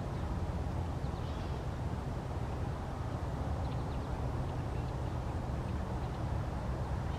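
Steady low outdoor background rumble, with a few faint high ticks now and then.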